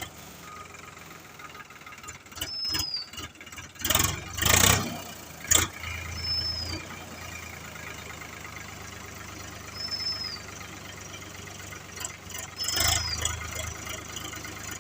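Backhoe loader's engine running steadily, with a few louder surges and a sharp knock about halfway through. A short, high chirp repeats every few seconds over it.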